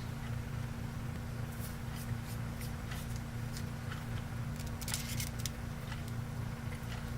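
Small light clicks and ticks of RC shock parts being handled and fitted together by hand, most of them bunched up a little past the middle, over a steady low electrical hum.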